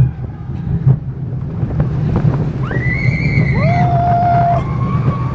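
California Screamin' steel roller coaster train running along the track, a steady rumble with light clicks and wind on the microphone. A little over two seconds in, riders let out long screams that rise sharply and then hold, two voices overlapping.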